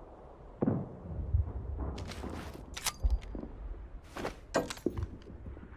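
Sound effect of a Suffocante Mle 1916 gas grenade: a sudden thump about half a second in, then a low rumble with several short, sharp bursts of noise and a few knocks.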